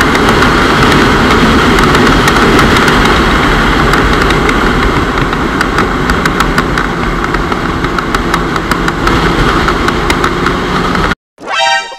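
Motorcycle riding at speed: heavy wind rush on the mounted camera's microphone mixed with engine and road noise, steady throughout. Near the end it cuts off abruptly and a brief pitched tone follows.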